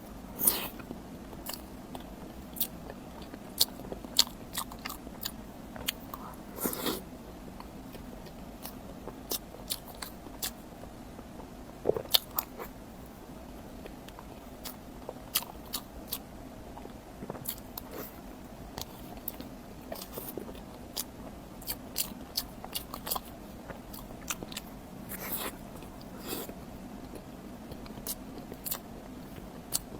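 Close-miked eating of a rainbow mille-crepe cake: chewing and biting with many short, sharp wet mouth clicks and smacks, a few louder clusters among them.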